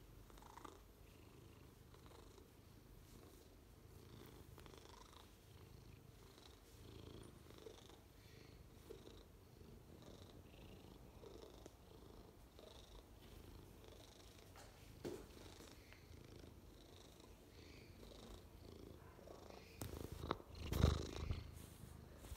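Maine Coon cat purring steadily while being scratched under the chin. Near the end comes a short loud patch of bumps and rumbles from the recording phone being handled and moved.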